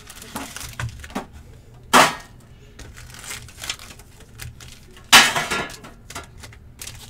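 Card-pack wrappers and a metal tin being handled on a table: small clicks and knocks, with two louder, short, hissy sounds about two and five seconds in.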